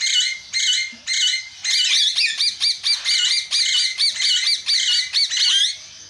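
Aviary flock of ringneck parakeets screeching: shrill, repeated calls, spaced out at first, then coming several a second from about two seconds in until near the end.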